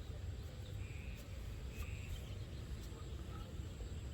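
Open-field ambience: a steady low rumble with a few short, high chirps about a second apart and faint ticks.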